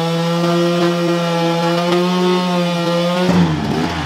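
Enduro motorcycle engine held at high revs in one steady note, then dropping off and turning rough about three seconds in.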